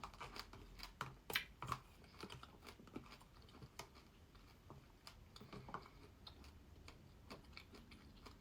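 Quiet chewing of lavashak, a sour fruit leather, close to the microphone: a scatter of small, irregular mouth clicks and smacks.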